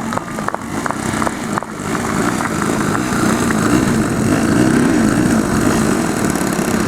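Engine of a radio-controlled Extra 330 aerobatic model aircraft running, its pitch wavering up and down and growing louder toward the middle. A few sharp clicks sound in the first two seconds.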